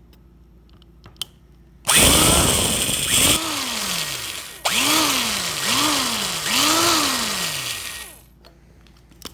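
Corded electric drill drilling out the front rivet of a die-cast Hot Wheels car. The drill starts about two seconds in and runs for about six seconds in several trigger pulses, its pitch rising and falling with each.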